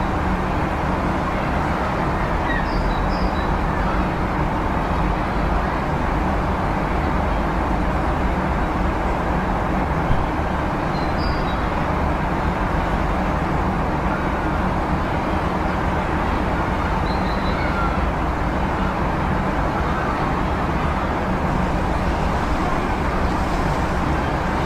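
City street traffic ambience: a steady, dense rumble of passing vehicles, with a few faint high chirps here and there.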